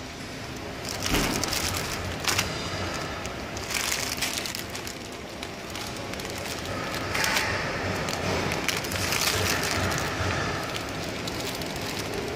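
Clear plastic bags of dried noodle bundles crinkling and rustling as they are handled and lifted on and off a weighing scale, in irregular crackles and rustles.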